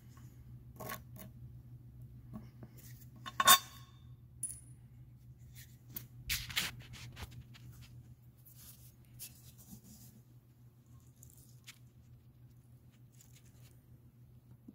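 Small metal hand tools clicking and scraping against the parts of a John Deere 4440 water pump as a stuck part is worked free. One sharp metallic clink rings out about three and a half seconds in, with a short clatter around six seconds.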